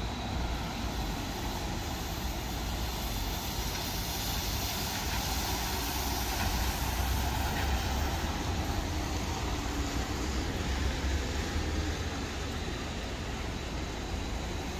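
A light-rail tram passing close by, a steady rolling rumble, slightly louder in the middle, over the noise of street traffic.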